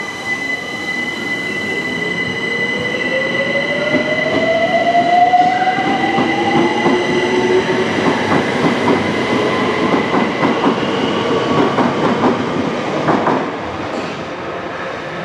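Class 378 Electrostar electric multiple unit pulling out, its electric drive giving a whine that rises in pitch as it gathers speed. Wheels click rapidly over the rail joints as the carriages pass, and the sound falls away near the end as the train leaves.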